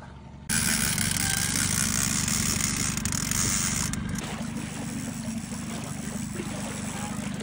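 Small boat's motor running steadily under a continuous hiss, starting abruptly about half a second in.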